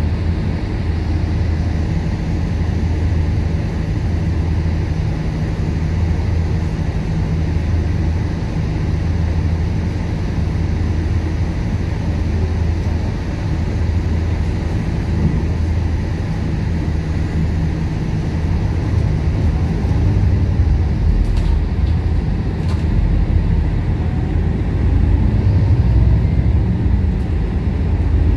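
MAN ND323F double-decker bus running, heard from on board: a steady low engine drone with road noise, growing somewhat louder in the last several seconds. Two faint clicks come about three-quarters of the way through.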